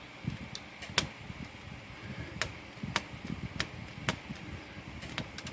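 Scattered sharp clicks, about six over a few seconds, with soft handling noise between them, from a Royal Quiet De Luxe typewriter's margin mechanism as it is worked by hand to find where it binds.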